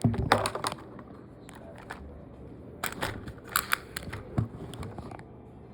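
An off-road RC car clattering over hard surfaces: two bursts of sharp knocks and crackling, one right at the start and another about three seconds in.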